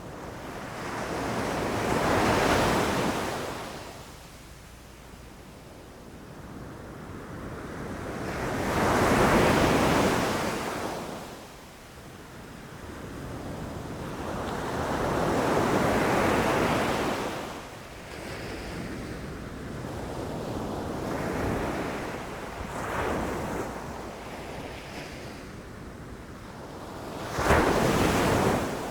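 Ocean waves rushing in and breaking, each surge swelling to a peak and ebbing away over several seconds: four big waves about six or seven seconds apart, the last short and sharp near the end, with smaller swells between. Wind noise on the microphone runs underneath.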